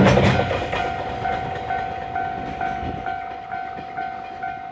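Freight train of container flatcars running past, its rumble fading as the tail end draws away. Over it an electronic warning bell rings in a steady beat about twice a second.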